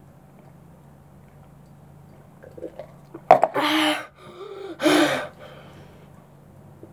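A boy's two loud, breathy gasps for air, about three and a half and five seconds in, after gulping down a full cup in one go. Before them there is only faint room hum.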